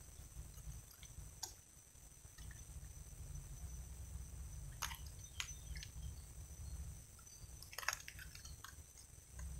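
Faint water drips and trickling, with a few sharp clicks standing out, over a steady low rumble.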